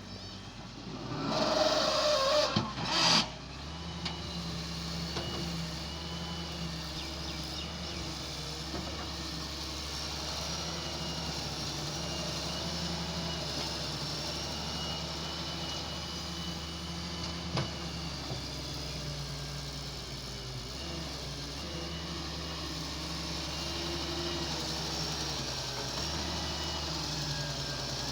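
Heavy diesel machinery engine running steadily, with a faint wavering high whine over it. There is a loud noisy burst near the start.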